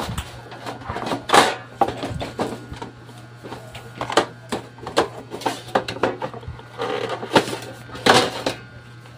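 The screws and sheet-metal top cover of a DB Audio karaoke amplifier being worked off: a run of irregular metallic clicks, scrapes and rattles as the case is opened.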